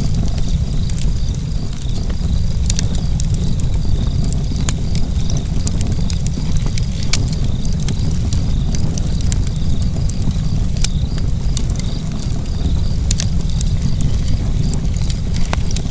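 Fire burning in a fireplace, crackling with frequent irregular sharp pops and snaps over a steady low rumble.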